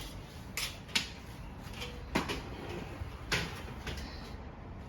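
A few light knocks and clicks, about four, spread unevenly over a low background, like things being handled and set down.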